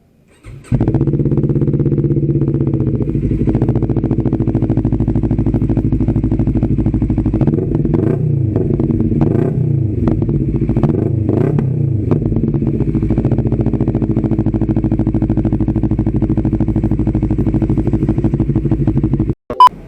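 CF Moto NK400's parallel-twin engine running through its muffler, loud and steady. In the middle it is revved several times, the pitch rising and falling with each blip, and then it settles back to a steady run. The sound cuts off abruptly near the end.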